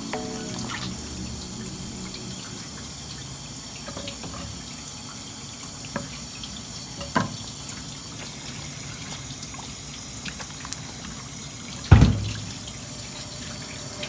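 Tap water running steadily onto a whole red sea bream as hands rinse and clean it, with a few light clicks and one loud thump about twelve seconds in.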